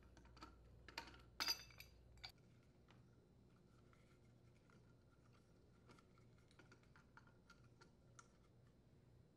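Pipe wrenches and a furnace gas valve being handled as the valve is unthreaded from the burner manifold: a few sharp metal clicks and one louder clank about a second and a half in, then faint scattered ticks as the valve is turned off the threads by hand.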